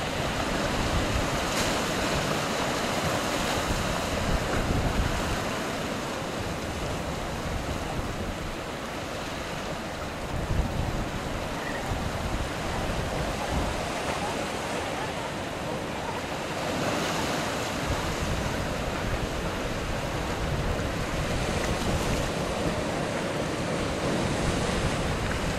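Ocean surf washing steadily around coastal rocks, swelling and easing every few seconds, with wind rumbling on the microphone.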